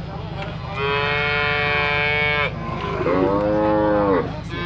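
Calves mooing: two long calls, the first held steady at a fairly high pitch, the second lower and arching up then down, with another call starting at the very end.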